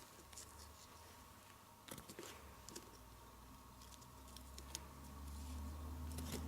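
A few faint, short snips and clicks of scissors trimming the ends of a ribbon, with a low hum building in the second half.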